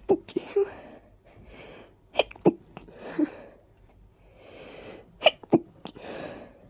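A person sneezing several times in a row. Breathy, catching inhales build up before each sharp sneeze: one at the start, then pairs about two seconds and five seconds in.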